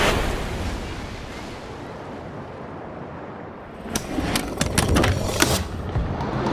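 A sudden loud hit that fades into a steady rushing noise, then, about four seconds in, a quick run of sharp cracks lasting under two seconds.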